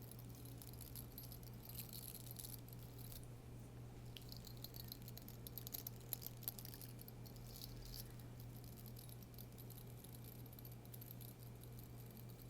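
Close-miked ASMR trigger sounds: light, rapid scratching and crinkly rustling with fine clicks, coming in uneven bursts, over a steady low hum.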